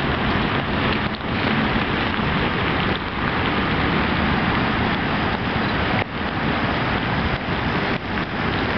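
Steady rain falling, with wind on the microphone: an even rushing hiss with a few brief dips.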